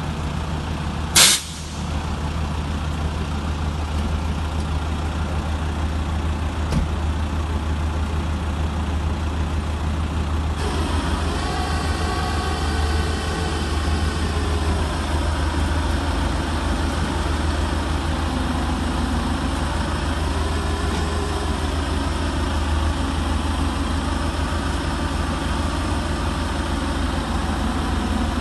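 A heavy vehicle's engine idling with a steady low rumble. About a second in comes a short, loud hiss of air, and there is a faint click near seven seconds.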